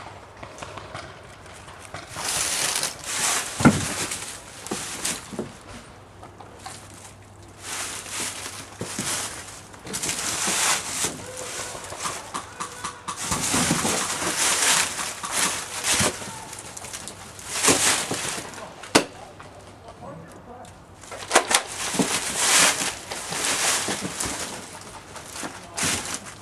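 Rustling and crunching of someone moving through dry brush and leaves, coming in irregular swells, with a couple of sharp snaps or clicks.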